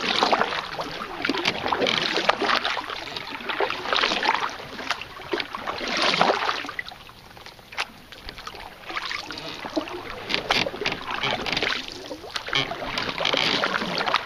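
Canoe paddle strokes: repeated swishes and splashes of the blade through the water, with light clicks and knocks, and a short lull about halfway through.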